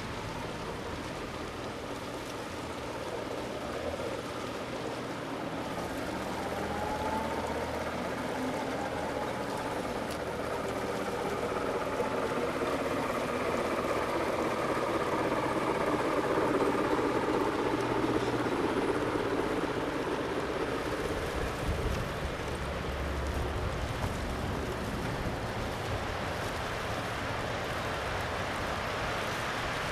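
A long train of G scale model tank cars rolling over outdoor track: a steady rolling noise of wheels on rails that grows louder toward the middle as the cars pass closest, then eases off. A faint squeal of wheels on the curve comes a few seconds in.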